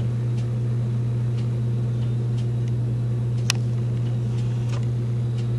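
A steady low mechanical hum, like a motor or fan unit running, with faint scattered ticks and one sharper click about three and a half seconds in.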